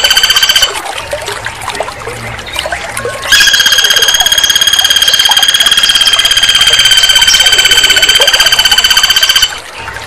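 Flameback woodpecker giving a long, loud, rapid monotone trill at one steady pitch. One bout ends under a second in, and a second runs from about three seconds in for about six seconds, with faint chirping in between.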